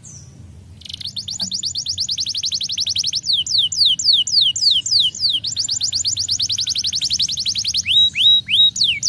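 Canary singing after a short pause. It alternates fast trills of rapidly repeated high notes with runs of quick downward-sliding whistles, about two or three slides a second.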